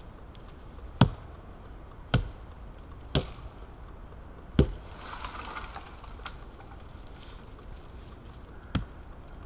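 Wetterlings Forest Axe chopping into a thin standing tree trunk. Four sharp strikes land about a second apart, then a fifth, softer one follows after a pause of a few seconds.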